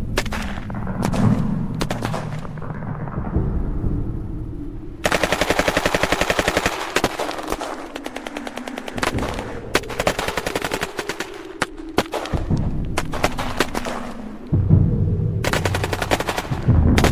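War sound effect of a gun battle: rapid machine-gun fire and scattered single gunshots. A dense fast burst starts about five seconds in, and a heavy low rumble comes in near the end.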